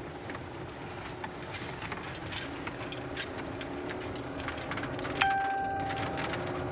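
Steady road noise inside a moving car's cabin on a wet road, with scattered ticks of rain on the glass. About five seconds in, a short ringing tone sounds once and fades.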